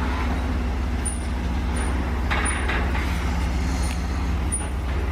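Steady low rumble of a road vehicle in motion, with a brief rustle about two and a half seconds in.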